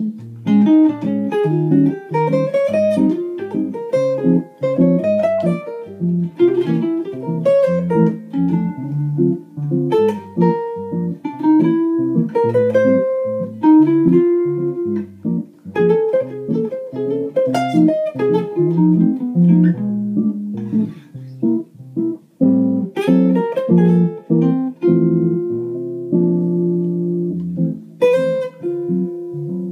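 Borys 420 Special 18-inch archtop jazz guitar played solo, with chords and melody lines plucked in a steady flow.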